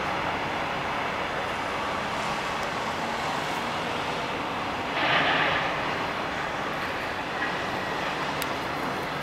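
Passenger coaches of a train rolling past at steady speed, a steady noise of wheels on rails, with a brief louder hiss about five seconds in.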